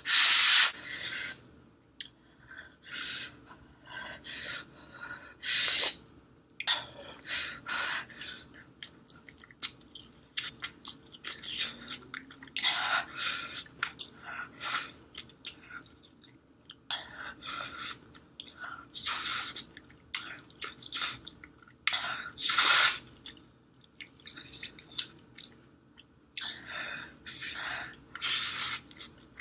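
Close-miked eating of extra-spicy fire-chicken instant noodles: irregular slurps and chewing, with short sharp breaths and sniffs between mouthfuls from the burning heat.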